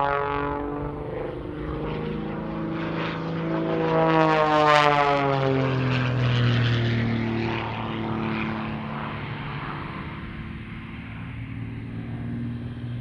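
Single-engine piston propeller aircraft, a 1956 de Havilland Super Chipmunk, running hard through low aerobatic passes. Its engine and propeller note climbs as it approaches and is loudest about four to five seconds in. The pitch then drops as it goes by, and the note settles as the plane pulls up into a vertical climb.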